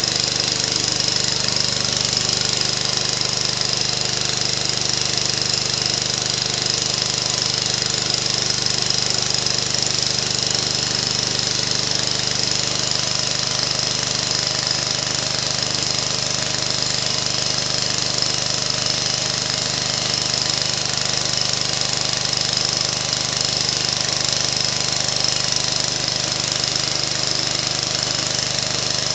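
Briggs & Stratton Model 23 engine running steadily, belt-driving a Hamco 3500-watt generator head.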